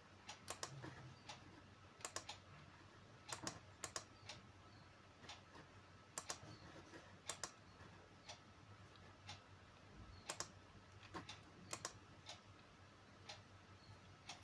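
Faint, scattered clicks of a computer mouse, some in quick pairs, over a low steady hum.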